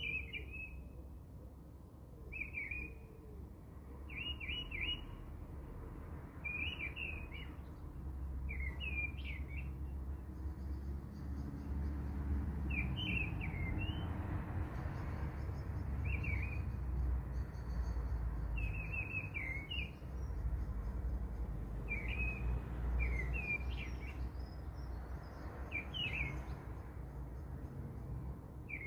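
A small bird chirping: short, high calls about every one to two seconds, over a low rumble.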